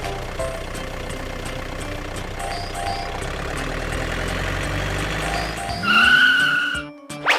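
Truck engine running steadily, with a loud high wavering tone about six seconds in.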